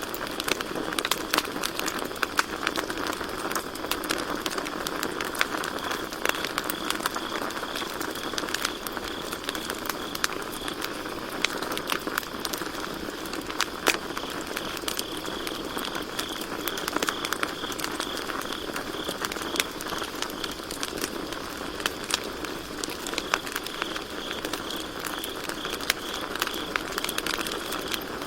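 Campfire crackling, with frequent sharp pops over a steady hiss of burning wood. Crickets chirp in a high, pulsing trill that fades in and out.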